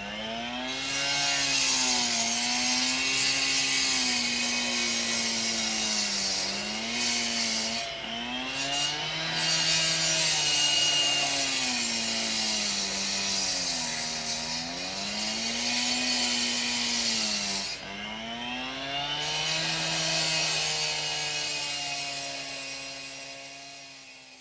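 Concrete chop saw (cut-off saw) cutting into reinforced concrete pipe, its engine pitch sagging and recovering every few seconds as the blade bites, over a steady grinding hiss. The sound fades out near the end.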